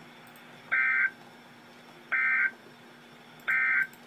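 Emergency Alert System end-of-message data bursts: three short, identical buzzing digital tone bursts about 1.4 seconds apart, the SAME "NNNN" code that closes an EAS alert.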